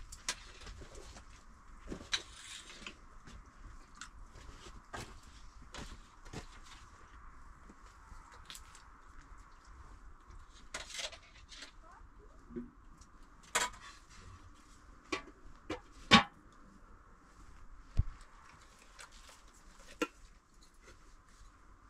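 Scattered clinks and knocks of a serving spoon against a pot and dishes as food is dished out, with one sharper knock about three-quarters of the way through, over a faint steady background.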